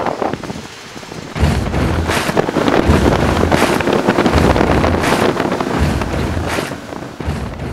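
Heavy wind buffeting the microphone from a bass boat running fast over choppy water, with a deep pulsing rumble underneath. It comes in loud about a second and a half in and eases near the end.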